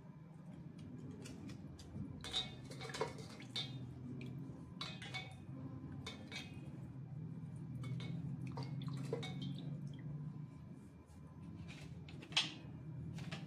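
Water splashing and sloshing in a steel bowl as hands wash slate pencils, with scattered clinks and knocks of the pencils and a knife against the steel, the sharpest near the end. A steady low hum runs underneath.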